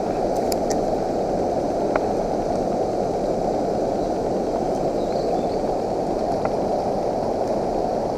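Steady rushing of river water pouring over the dam's spillway, an even low roar with no change.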